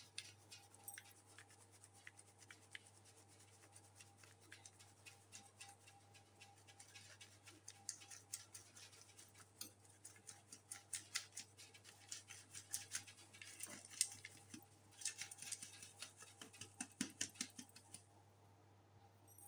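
Faint, quick tapping and rustling of a hand sieve being shaken and slapped by hand while wheat flour is sifted into a stainless steel plate. The taps come faster and a little louder about halfway through.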